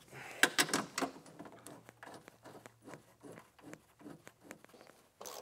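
A run of small clicks and knocks, dense in the first second and sparser after, from gloved hands handling metal parts of a snowmobile's rear suspension near an idler wheel.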